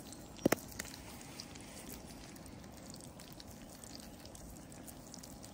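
Salmon fillet frying in oil in a camping frying pan, a faint steady sizzle. One sharp click about half a second in.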